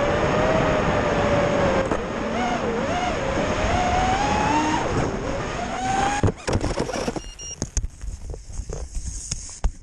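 FPV racing quadcopter's brushless motors whining in flight, the pitch rising and falling with the throttle. After about six seconds the whine drops away, leaving gusty wind noise and scattered sharp clicks.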